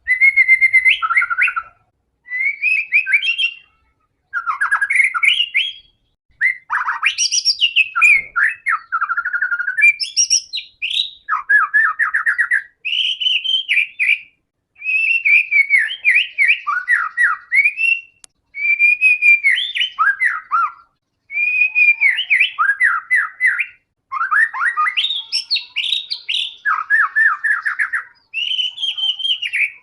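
White-rumped shama (murai batu) singing in full voice: about a dozen varied phrases of clear whistles and fast trills, each a second or two long, with short pauses between. This is the kind of song played as a lure to set other shamas singing.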